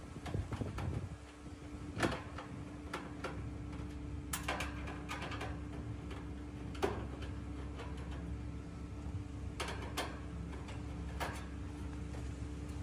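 Scattered clicks and scrapes of a screwdriver turning screws in the sheet-metal top panel of an AC condensing unit, over a steady low hum.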